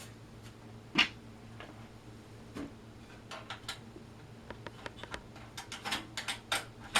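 Clicks and ticks of a desktop PC's case panel and screws being put back on: one sharp click about a second in, then a run of small quick ticks as the screws are fastened.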